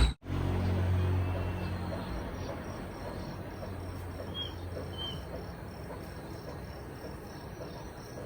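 Insects chirping steadily in a regular high pulse about three times a second, with two short bird chirps around the middle. A low hum fades out over the first couple of seconds.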